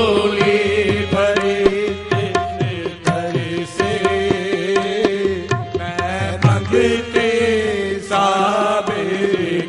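Qawwali music: a lead singer's voice sliding through long ornamented phrases over steady harmonium tones, with tabla strokes.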